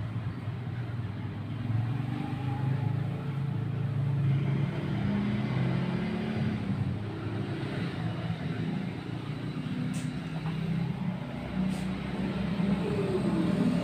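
Steady low rumble of running vehicle engines, with pitches that shift slowly, and two faint clicks late on.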